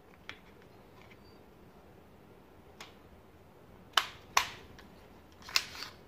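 A plastic piece being pressed and snapped back into a sliding window's sash rail: a few light clicks, then three sharp snaps in the last two seconds as it seats.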